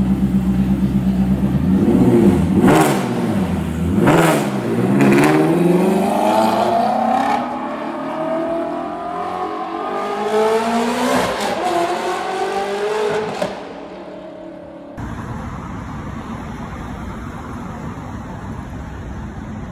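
Straight-piped Ferrari sports car idling, then blipped through a few sharp revs, then pulling away with the engine note rising through several gear changes: very loud at high revs. It fades out about 14 seconds in, and steady city street noise follows.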